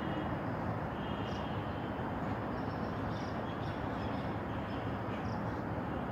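Steady outdoor background noise, an even rumble with no single clear source, with faint short high sounds now and then.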